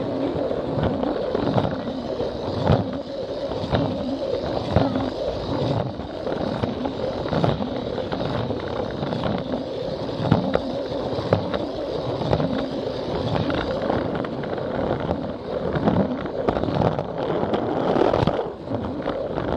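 Plarail battery toy train running along plastic track, heard from on board: a steady motor whir and wheel rattle with frequent clacks as it crosses the track joints.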